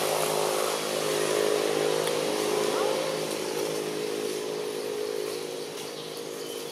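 A steady droning hum at an even pitch over a broad hiss, slowly easing off toward the end.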